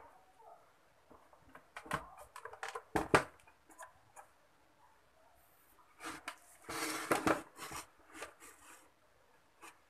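Plastic housing of a National Omega blender base being handled and turned over on a table: scattered knocks and clicks, the loudest about three seconds in, and a short scraping rustle around seven seconds in.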